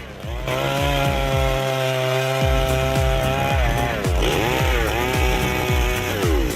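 A 7.3-horsepower chainsaw running at high revs, ripping a log lengthwise into boards. Its pitch sags and recovers from about four seconds in as the chain bites into the wood. Background music with a low thumping beat comes in a couple of seconds in.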